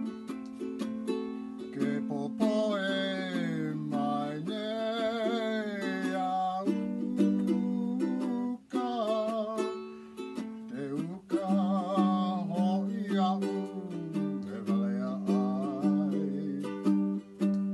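Live Hawaiian hula song: a ukulele strummed in a steady rhythm, with a voice singing over it in long held notes with vibrato.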